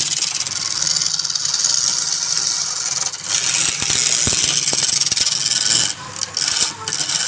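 Wood lathe running with a turning tool cutting into the spinning wood, a steady motor hum under a hissing scrape. The cutting breaks off briefly twice near the end.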